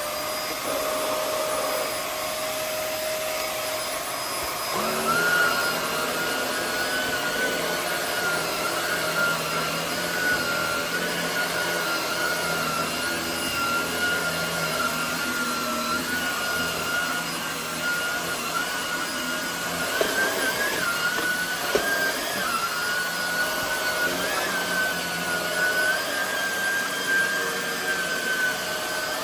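Hoover WindTunnel Air upright vacuum running on a replacement Shark Rotator (blue Rotator) motor: a steady whine over the rush of air. About five seconds in, the whine steps up in pitch and a low hum joins it. The whine wavers briefly around twenty seconds in.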